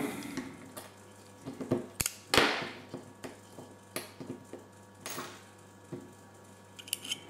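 Small clicks, taps and a brief scrape of hard plastic and metal as fingers work a Campagnolo QS shifter body to get a small washer out of it, the loudest pair of clicks about two seconds in.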